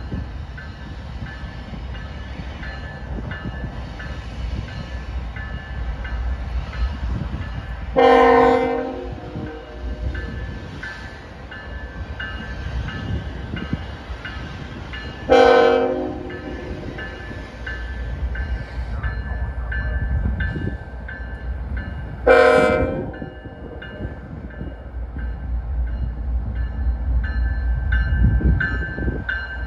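CSX freight train's diesel locomotives sounding three horn blasts about seven seconds apart, each about a second long. Between and under them is the steady low rumble of the locomotives and railcars, growing louder as the train draws near.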